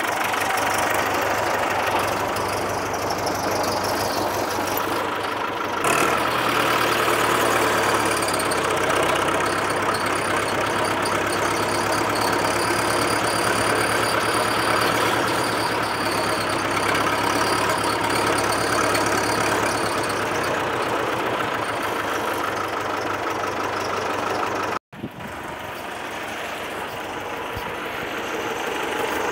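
Massey Ferguson tractor engine running steadily as the tractor is driven, a little louder from about six seconds in. It breaks off abruptly near the end and gives way to a quieter, steady engine sound.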